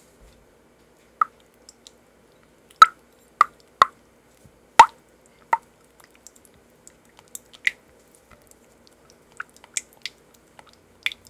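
Silicone spatula stirring a sticky honey mixture in a glass bowl: irregular wet clicks and smacks as the spatula scrapes and slaps against the glass, a few much louder than the rest.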